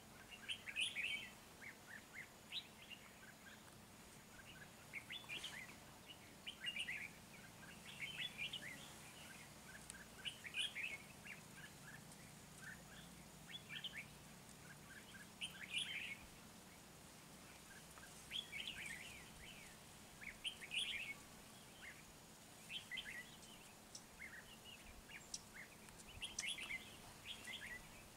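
Red-whiskered bulbuls calling: short clusters of quick chirping, warbling notes, repeated every second or two.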